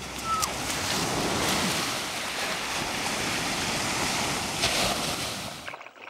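Steady rushing water noise, even from low to high pitches, that cuts off abruptly near the end.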